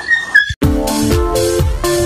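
Electronic dance music with a steady beat, cutting in abruptly about half a second in, after a brief high-pitched cry.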